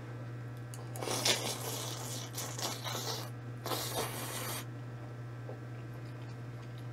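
Noodles being slurped up close, in two noisy stretches, the first longer and uneven, about a second apart, over a steady low hum.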